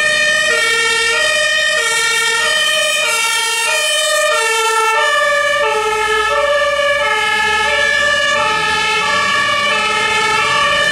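Dutch fire-service truck's two-tone siren alternating steadily between a high and a low note. Its pitch drops slightly about halfway through as the truck passes and moves away.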